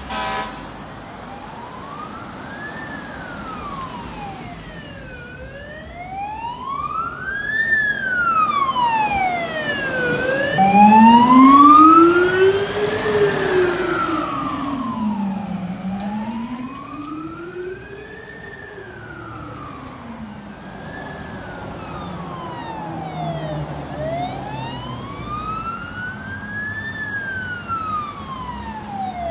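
Fire engine wail sirens rising and falling slowly, about five seconds per cycle, over passing road traffic. The siren is loudest about halfway through, as the fire truck passes close by, and a lower-pitched wail tone runs alongside it for a few cycles.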